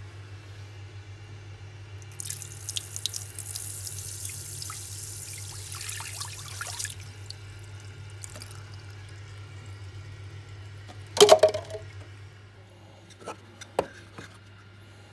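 Tap water running into a sink for about five seconds, then stopping. About eleven seconds in comes a loud clatter, then a couple of lighter knocks, over a steady low hum.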